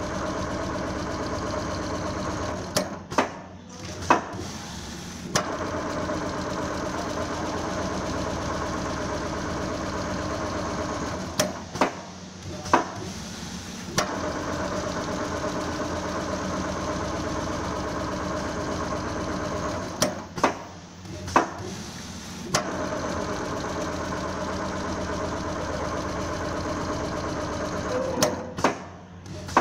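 Richpeace automatic pattern sewing machine stitching quilted leather: a steady, fast needle rhythm that stops for two or three seconds four times, with a few sharp clicks in each stop, before running on again.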